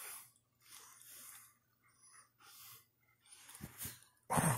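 Alaskan malamute snuffling and breathing in short, noisy huffs while mouthing a person's hand, with a louder huff near the end.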